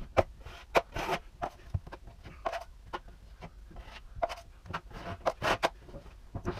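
Metal drywall knife scraping old joint compound off a drywall seam in short, irregular strokes, sharp scrapes and clicks a few a second. Now and then the blade is scraped clean on the edge of a handheld mud pan.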